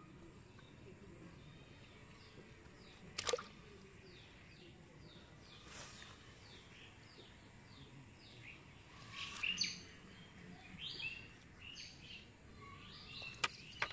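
Birds chirping: many short, downward-sliding chirps repeated throughout, busier in the second half. A sharp click sounds about three seconds in and again near the end.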